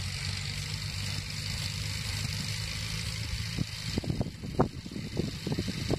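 1948 Farmall Cub's four-cylinder flathead engine running steadily under load, pulling a one-bottom plow. From about three and a half seconds in, irregular thumps and gusts of noise break in over the engine, the loudest of them a little past the middle.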